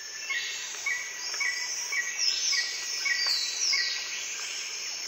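Woodland insects shrilling steadily and high, with a short chirp repeating about twice a second and a few falling calls over it.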